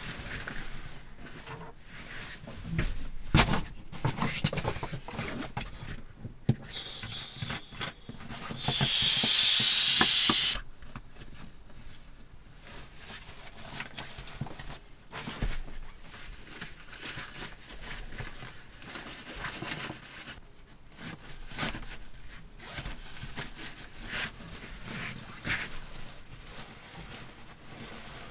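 Fabric rustling and rubbing as bedding cloth is handled, folded and stuffed into a cushion cover, with scattered light knocks. About nine seconds in, a loud even hiss lasts about two seconds and then cuts off.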